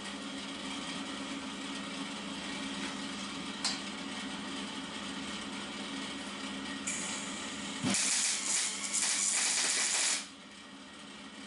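Electric arc welding a tack weld on steel box-section framework: about two seconds of loud crackling and sizzling from the arc, starting near eight seconds in and stopping abruptly. A steady hum runs underneath, with a single click a few seconds in.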